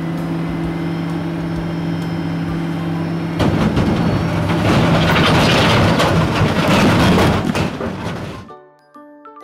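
Sound effect of a large rigid dump truck: its diesel engine runs with a steady hum, then about three and a half seconds in a louder, rattling rush of noise takes over. It cuts off suddenly near the end.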